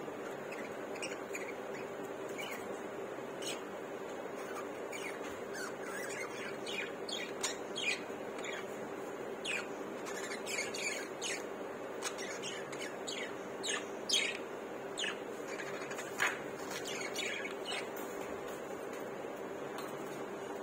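Budgerigars chattering in short, quick chirps and squawks, sparse at first and thickest through the middle of the stretch. A steady hum with a constant low tone runs underneath.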